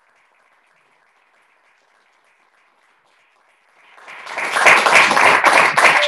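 Audience applauding at the end of a lecture, breaking out about four seconds in after near silence and quickly swelling to full, steady applause.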